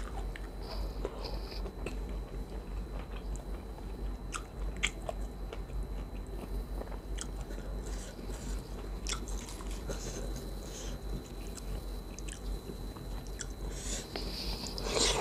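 Close-miked mouth sounds of eating khanom jeen rice noodles and chicken feet: chewing and biting with scattered small wet clicks, and a louder burst near the end.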